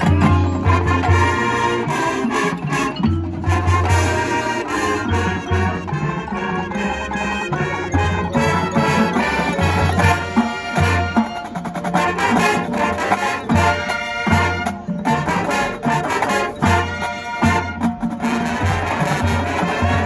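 Marching band playing a field show: full brass chords over a driving low bass pulse, with drums and percussion beneath.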